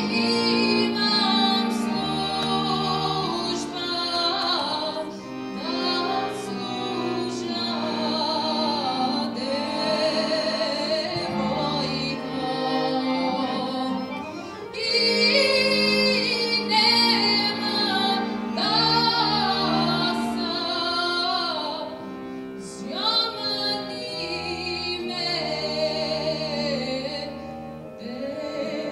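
A woman singing solo into a handheld microphone, in long held phrases with vibrato, over a sustained instrumental accompaniment.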